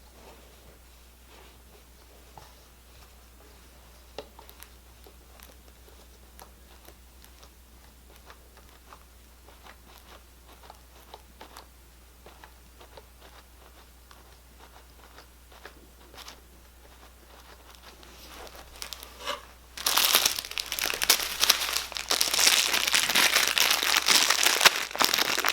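Faint scattered clicks and taps of things being handled, then, about twenty seconds in, loud crinkling and rustling of packaging being unwrapped.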